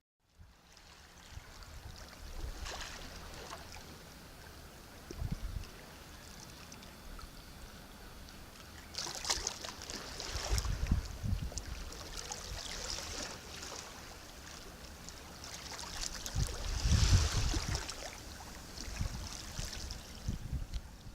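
Sea waves breaking and washing in, each surge swelling and then falling back over a few seconds; the largest come about halfway through and again near the three-quarter mark, with a deep rumble under them.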